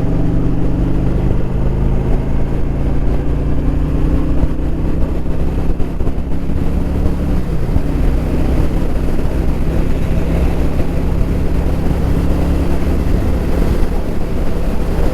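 Motorcycle engine running steadily at road speed, with wind noise over the helmet-mounted microphone, while overtaking a slow hay vehicle.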